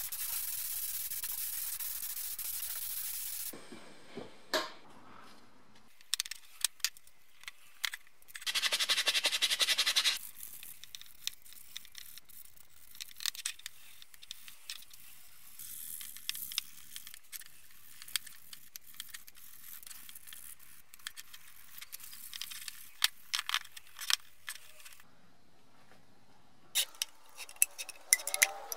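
A paint spray gun hissing steadily for about three and a half seconds, then a second, louder hiss lasting about a second and a half. After that come light clicks, taps and scrapes of metal brake-caliper parts and tools handled on a wooden workbench, and near the end a quick run of clicks as paint is stirred in a tin.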